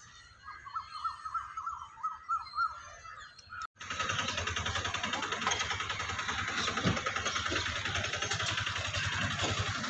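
Faint, repeated high chirping for the first few seconds, then an abrupt cut to a louder vehicle engine running with a rapid low throb amid road noise.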